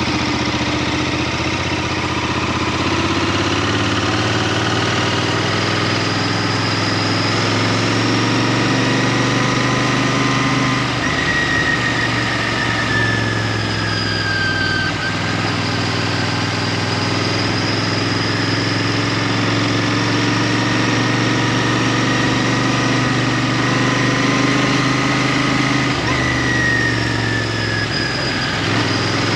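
Royal Enfield Interceptor 650's parallel-twin engine running steadily while the motorcycle is ridden. Its note sinks slowly twice, about halfway through and again near the end.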